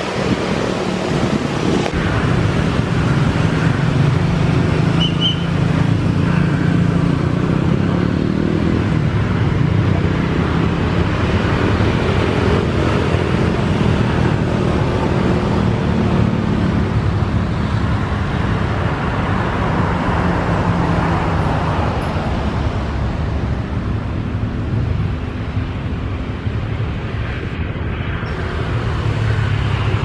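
Airliner turbofan engines running on the ground as the jets taxi: a steady low rumble with a broad rushing hiss.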